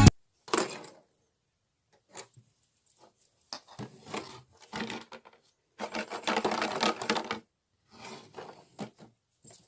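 Irregular clicking and rattling of hard plastic, like a milk-bottle dog toy with treats inside being knocked about. It comes in scattered clicks, with a busier stretch of rattling for about a second and a half past the middle.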